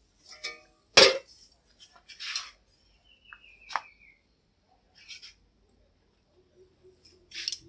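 A few scattered knocks, clinks and rustles from a plate of food and kitchen utensils being handled, the loudest knock about a second in. A short falling chirp sounds near the middle.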